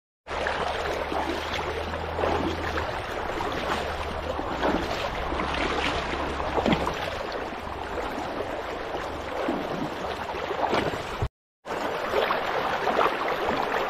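Shallow river water rushing and splashing, with many sharp splashes as someone wades across the river on foot.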